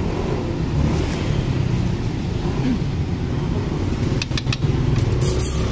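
Steady low rumble of outdoor street noise, with a few sharp clicks about four seconds in and again near the end.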